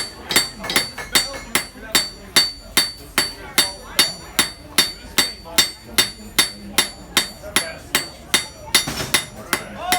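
Blacksmith's hammer striking hot metal on an anvil in a steady rhythm, about three blows a second, each blow followed by a high metallic ring from the anvil.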